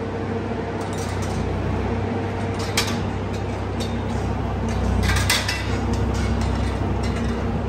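Steady low machine hum, with a few short metallic clinks about three seconds in and again around five seconds in.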